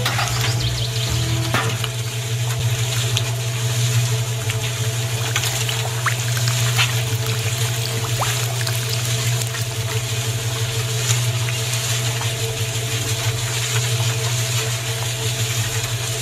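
Small electric motor of a miniature concrete mixer running with a steady hum, its chain-driven steel drum tumbling a sand-and-cement mix with a continuous gritty hiss and small ticks, as water is poured into the turning drum.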